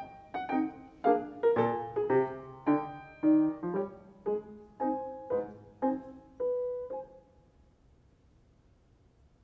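Solo grand piano playing single struck notes, about two a second, that thin out to one held note and stop about seven seconds in, leaving near silence.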